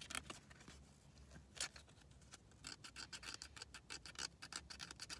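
Faint, quick scratching strokes on a scratch-off lottery ticket, rubbing off the coating in short runs with brief pauses between them.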